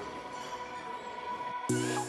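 Background music: a soft, steady passage, then about one and a half seconds in a louder section starts with a chord repeated at an even beat.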